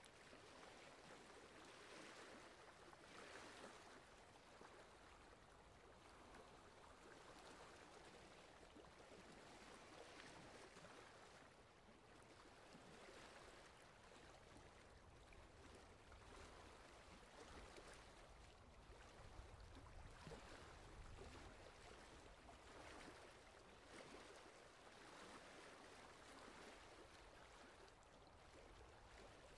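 Faint water sloshing and lapping from a paddle stroking beside a wooden boat, swelling every few seconds, with a low rumble for a few seconds past the middle.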